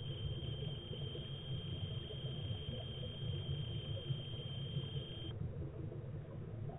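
Steady low underwater rumble picked up by a camera in its waterproof housing, with a thin steady high tone that cuts off suddenly about five seconds in.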